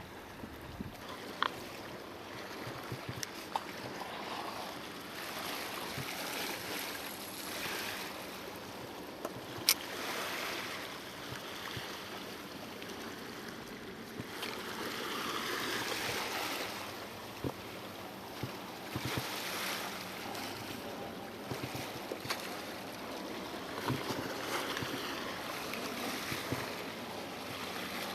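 Sea washing against shore rocks, swelling and ebbing every few seconds, with a few sharp clicks, the loudest about ten seconds in.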